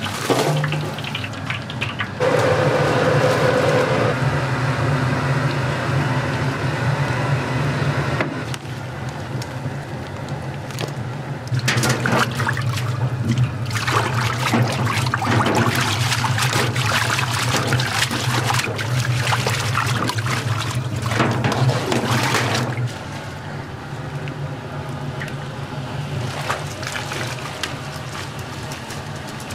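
Tap water running and splashing over boiled noodles being rinsed by hand in a stainless mesh strainer in a sink. Under it runs a steady low hum that drops away about three-quarters of the way through.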